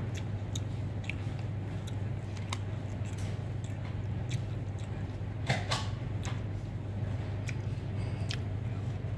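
Light clicks from a plastic fork against a clear plastic takeaway box of fried rice vermicelli, with a brief scrape-and-clatter about five and a half seconds in, over a steady low hum.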